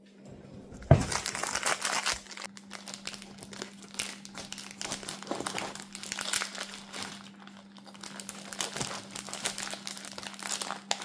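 Food packaging crinkling and rustling in the hands as a cake is unwrapped and handled, with a sharp knock about a second in. A faint steady hum lies underneath.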